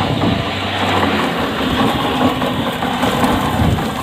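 Motor of the block-making machinery running steadily, with a low hum that fades out about a second in.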